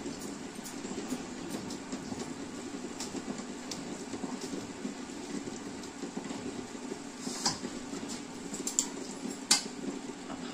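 Hand mixing flour and chutney in a steel bowl: dry rubbing and scraping with light clicks against the steel, over a steady low background noise. A couple of sharper clinks come near the end as a spoon strikes a steel bowl.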